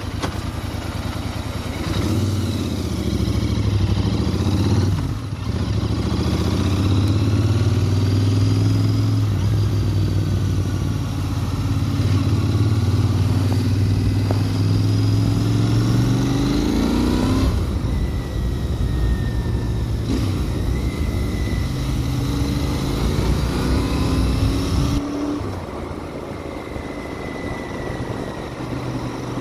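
Royal Enfield Interceptor 650 parallel-twin engine through its stock exhaust, pulling under acceleration. The revs climb and fall away sharply at gear changes about 5 and 17 seconds in, then ease off to a lower, quieter note near the end.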